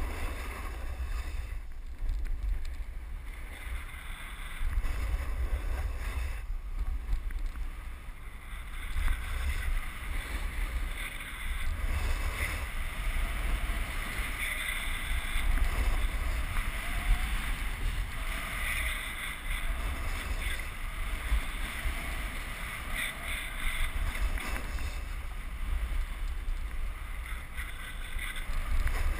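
Wind buffeting the microphone in a low rumble over the scraping hiss of a snowboard sliding and carving on packed, groomed snow, swelling and easing as the board turns.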